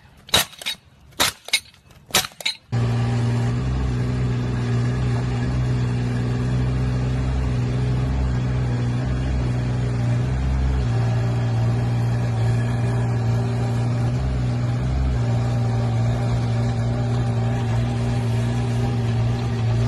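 A short run of sharp, irregular knocks, then from about three seconds in a mini excavator's engine running steadily.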